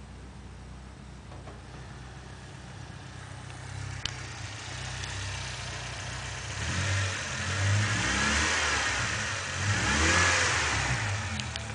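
Fiat Palio engine idling steadily, then revved twice in the second half, the pitch rising and falling each time.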